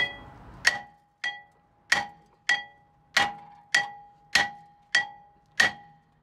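Claw hammer striking a seized front brake disc on a VW Golf R's hub: about ten sharp blows, roughly every 0.6 s. Each blow leaves the cast-iron disc ringing with a clear metallic tone. The disc is stuck fast to the hub, which calls for repeated heavy blows to free it.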